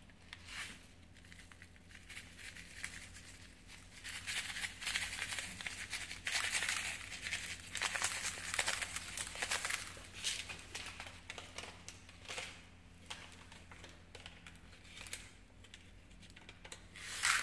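Packet of popping candy crinkling and rustling as it is handled, opened and shaken out, loudest from about four to eleven seconds in.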